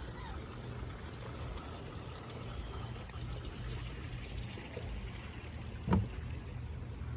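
A steady low rumbling background noise, with a single dull thump about six seconds in.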